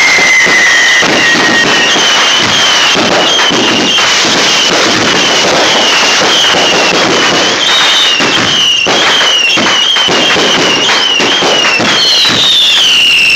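Fireworks going off in a dense, continuous crackling and popping. Whistling fireworks sound over the crackle: a falling whistle at the start, a run of short repeated whistles through the middle, and another falling whistle near the end.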